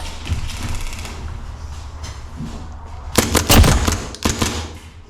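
Airsoft gun firing a quick string of shots about three seconds in, followed by a few more shots a second later.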